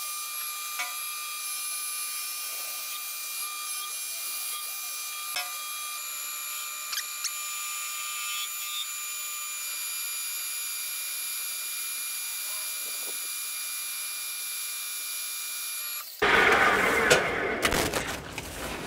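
Metal lathe running under a facing cut on a turned pulley, a steady whine of motor and gearing with a few light clicks. About two seconds before the end it gives way suddenly to louder, irregular handling noise.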